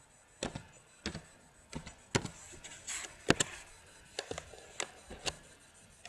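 Typing on a computer keyboard: about a dozen sharp key clicks at uneven intervals, often two in quick succession.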